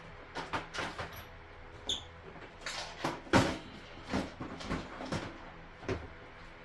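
Irregular knocks and clunks of hard objects being handled, with a short metallic ping about two seconds in and the loudest knock a little past the middle.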